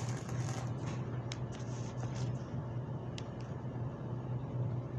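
Coins and paper bills handled on a table: a few light clicks and rustles over a steady low hum.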